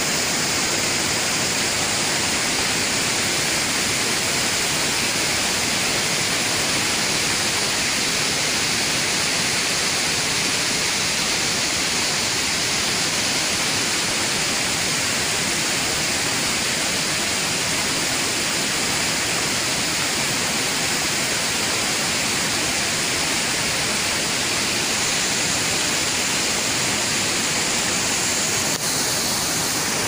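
Rain-swollen mountain river rushing in flood over rocks and a low stone weir: a steady, even roar of water that does not change.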